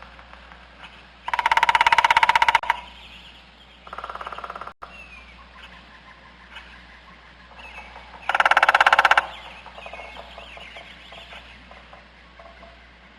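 Bird calls: two loud, harsh, rapidly pulsed rattling calls about six seconds apart, a quieter shorter call between them, and faint short chirps in the background.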